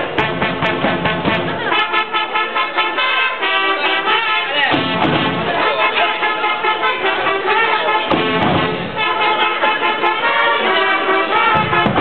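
Brass band playing a tune with a steady beat.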